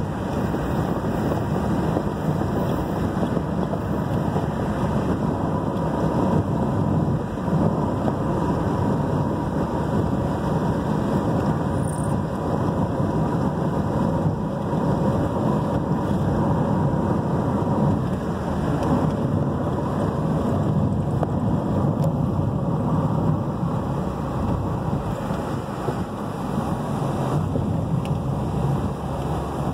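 A car driving on a worn, cracked and patched asphalt road, heard from inside the cabin: a steady rumble of tyres and engine.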